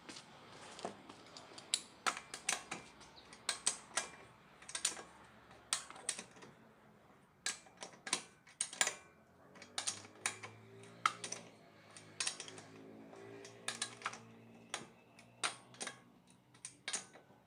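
Irregular sharp clicks and light taps, some coming in quick runs.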